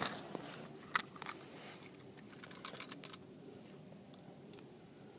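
Faint, scattered clicks and light rustling as a handheld phone camera is gripped and moved about, over a low steady hum.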